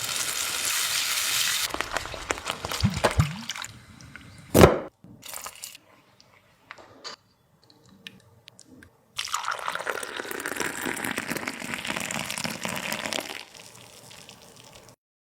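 Pakodi frying in hot oil, sizzling. The sizzle fades out over the first couple of seconds and comes back about nine seconds in for some four seconds. A single sharp knock sounds between, about four and a half seconds in.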